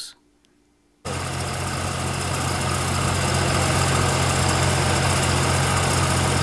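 A heavy engine idling steadily, a low hum under an even hiss, which starts suddenly about a second in.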